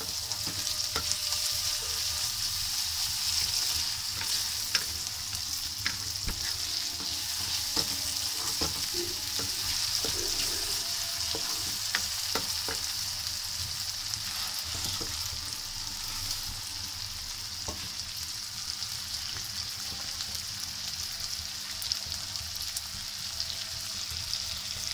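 Chopped onion, tomato and green chillies sizzling steadily in hot oil in a kadai, with a wooden spatula stirring and scraping and scattered light clicks against the pan.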